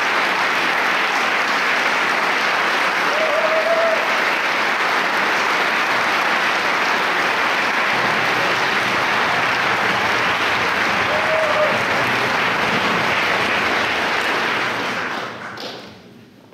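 Concert-hall audience applauding steadily, fading out near the end.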